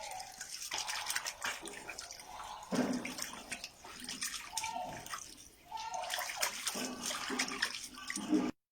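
Water sloshing and splashing in a basin as something is washed and scrubbed by hand, in irregular strokes; the sound cuts off abruptly near the end.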